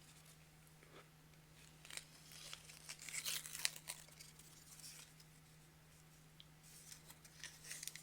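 An ice cream cone's wrapper being peeled and torn away by hand: faint crinkling and tearing in scattered bursts, busiest about two to four seconds in and again near the end, over a steady low hum.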